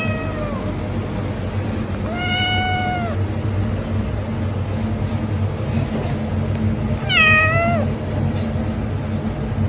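Young cat meowing three times: a short meow at the very start, a held meow about two seconds in, and a meow near seven seconds that rises and then drops in pitch.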